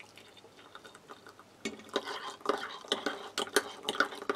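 Hot water poured from a kettle into a ceramic mug, with a spoon clinking against the mug. The clinks start about one and a half seconds in and come as quick, irregular taps.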